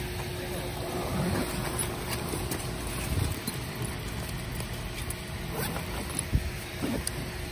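Rustling and scuffing of handling noise as a fabric backpack is opened and rummaged through on dry leaves and twigs, with a few short knocks, the loudest a little past six seconds in, over a faint steady hum.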